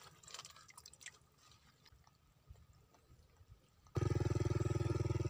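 Faint drips and small trickles of water in mud. About four seconds in, a motorcycle engine comes in suddenly, running loud and steady with an even, rapid pulse.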